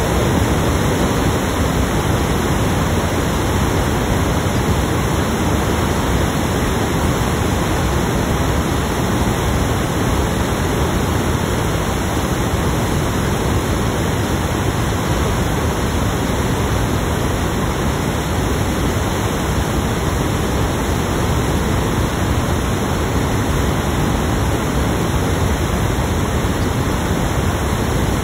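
Loud, steady static hiss, a recording fault that drowns out the voice.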